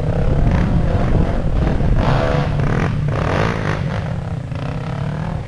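Several dirt bike engines running on a trail climb, with one revving up and down for a second or so about two seconds in.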